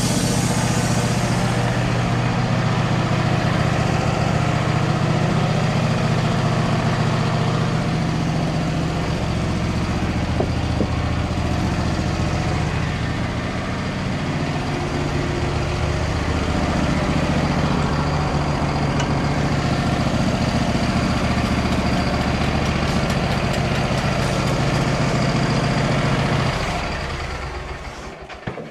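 Portable band sawmill engine running steadily. The blade's cutting hiss fades out in the first second or two, and the engine winds down and stops near the end.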